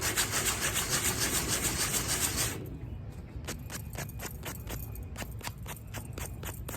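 Sandpaper rubbed back and forth over the rough backs of small jewelry pieces: fast scratchy strokes, about five a second, that turn quieter and slower, separate strokes about three a second, some two and a half seconds in.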